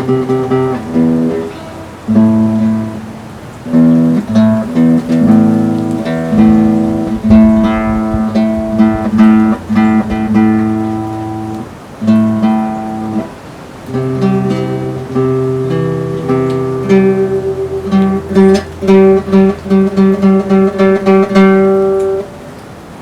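Acoustic guitar strumming chords in an instrumental passage of a folk song, with no singing.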